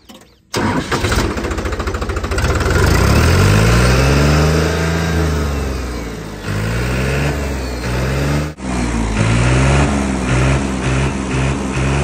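New Holland 3630 tractor's diesel engine cranked by the starter and catching about half a second in, then revved up and down several times through its stock company-fitted silencer.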